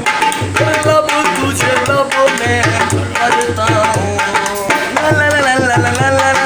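Dholak played by hand in a steady rhythm, with a wavering melody over the drumming.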